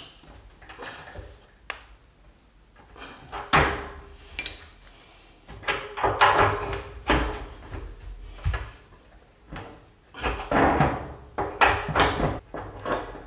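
Old radiator valve insert being wound out of the radiator with a hexagonal insert tool turned by an adjustable spanner: metal clicks and scraping in several irregular bouts.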